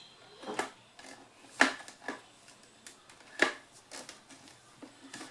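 Parts of a mixer grinder being handled and fitted together, giving several sharp clicks and knocks. The loudest come about a second and a half in and again about three and a half seconds in.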